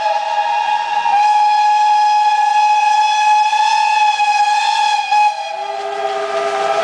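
Steam locomotive whistles blowing long and steady, several pitches sounding together. About five seconds in one whistle cuts off and a lower-pitched whistle takes over.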